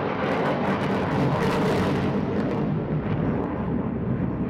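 Delta-wing fighter jet's engine during a display pass: a loud, steady rushing noise that swells slightly between one and two seconds in.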